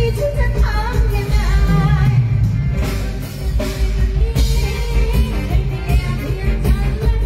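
A live Thai ramwong dance band playing an upbeat song, with a singer's melody over electric guitar and a heavy, steady bass-and-drum beat through loudspeakers.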